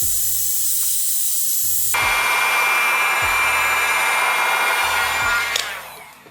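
Digital heat gun blowing hot air, a steady hiss that gets louder about two seconds in and dies away near the end. It is heating the back cover of a smartphone to soften the glue that holds it.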